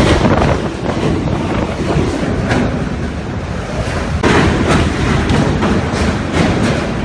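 Typhoon wind buffeting the microphone: a loud, continuous rushing with gusty surges, jumping louder about four seconds in.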